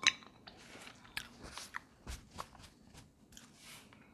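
Snow crab legs being cracked and eaten: a string of short, sharp shell cracks and crunches with biting and chewing, the loudest crack right at the start.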